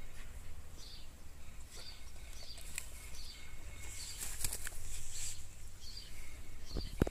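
Outdoor ambience: short high chirping calls repeat roughly once a second over a low rumble, with a few faint clicks. A sharp knock just before the end is the loudest sound.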